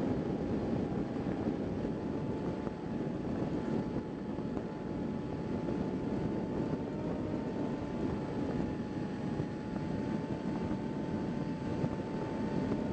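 Onboard sound of a HobbyKing Bix3 foam RC plane in low flight: rushing airflow on the camera microphone, with the nearly steady whine of its electric motor and propeller.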